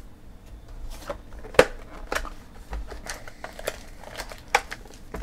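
Trading cards and their packaging handled by hand: a run of sharp clicks, snaps and crinkles, the loudest about a second and a half in.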